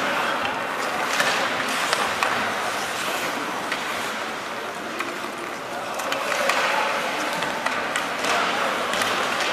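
Ice hockey play: skate blades scraping on the ice and sticks clicking against the puck now and then, with players' and spectators' voices in the rink.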